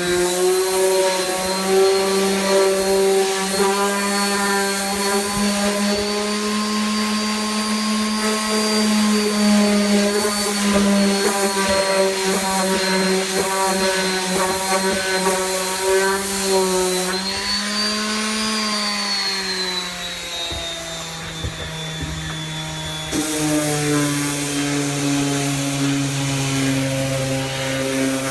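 Electric power sander running continuously against wood, a steady motor hum with a rasping rub. The motor's pitch wavers as pressure on the work changes, and drops lower about two-thirds of the way through.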